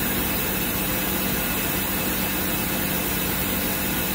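Main spindle of a 2008 Tsugami SS20 Swiss-type CNC lathe running at 2,000 RPM, a steady mechanical hum with a faint steady tone, held at one speed during a step-by-step spindle speed test.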